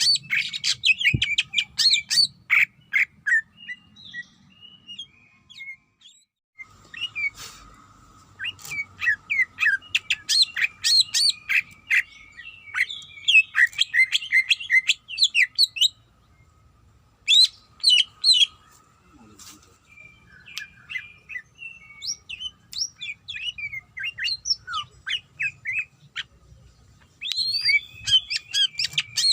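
Cucak ijo (greater green leafbird) singing a rapid, loud stream of high chirps, whistles and trills in bursts. Pauses of a second or more break the song, the longest about four seconds in.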